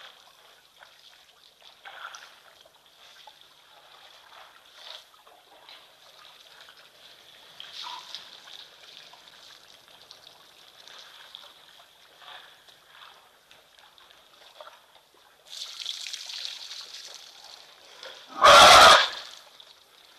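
Elephants drinking at a waterhole: water trickling and splashing from their trunks, with a louder spell of splashing in the last few seconds. Just before the end comes a sudden, very loud blast lasting about half a second.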